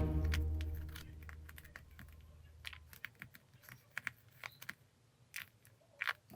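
Irregular soft clicks and crackles of a nano-tape squishy being handled and pressed, its sticky tape skin crinkling under the fingers. A low hum fades out over the first three seconds.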